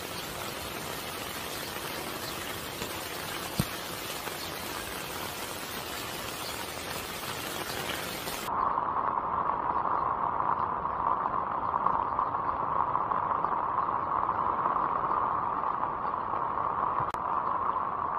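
Rain falling in a steady hiss, with one sharp click about three and a half seconds in. About eight and a half seconds in, the sound changes abruptly to a louder, duller hiss.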